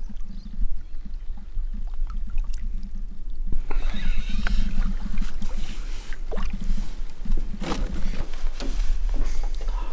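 Lake water slapping and gurgling against a canoe hull, with steady wind rumble on the microphone and a few small knocks.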